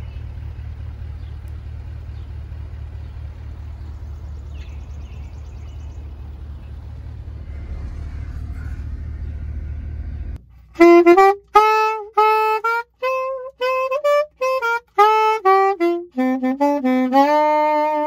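Low steady rumble of a car, heard from inside it, for about ten seconds; then a soprano saxophone starts and plays a melody of short separate notes, the last one held.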